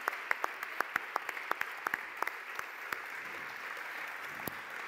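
Large audience applauding, with loud individual claps standing out over the first two and a half seconds before the clapping settles into an even wash.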